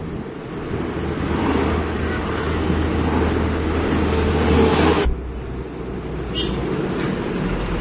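Isuzu truck's engine and road noise heard from inside the moving cab, a steady low drone. A large bus passing in the oncoming lane swells the noise around four to five seconds in. The sound then drops abruptly to a quieter cab drone.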